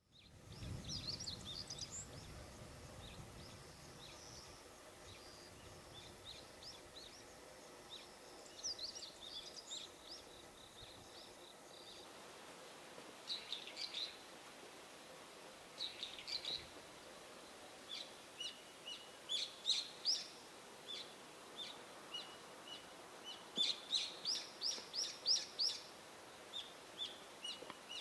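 Small birds chirping: short high calls scattered throughout, with a quick run of about eight notes near the end, over faint steady outdoor background noise.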